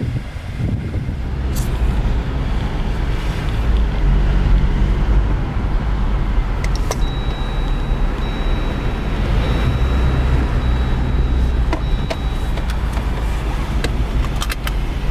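A Jeep Wrangler's 2.0-litre turbo four-cylinder running with a steady low drone, with a few sharp clicks over it.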